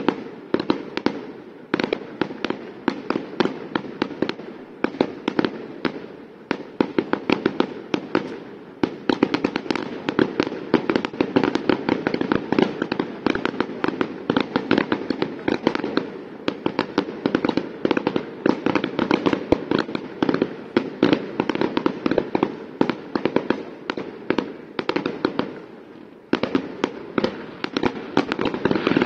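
Aerial fireworks: a dense barrage of shell bursts and crackling bangs, one after another with hardly a gap, easing briefly about a second in and again near the end before resuming.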